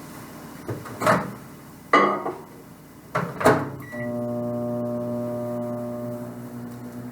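Microwave oven being set going: a few knocks and clatters as the oven is loaded and shut, a short beep just before four seconds in, then the oven's steady hum as it starts running.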